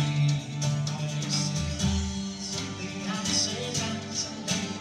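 Scottish folk band playing live: fiddle and bouzouki over a drum kit, with a steady low drone under the tune.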